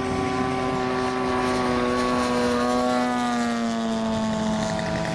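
Engine and propeller of a large-scale radio-controlled model warbird droning in flight, one steady note whose pitch slowly sinks.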